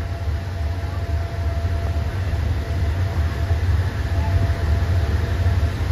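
Diesel locomotive engine running at a train station: a steady low rumble with a faint steady whine above it.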